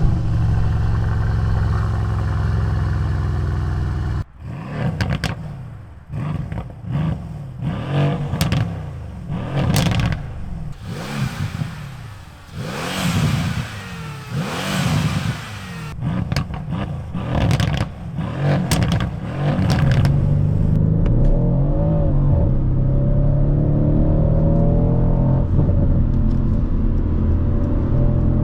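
Mercedes-AMG C63 W205's 4.0-litre twin-turbo V8 at a fast idle just after start-up, then revved in about a dozen quick blips that rise and fall, with crackles on the overrun. It settles back to a steady idle after about 20 seconds.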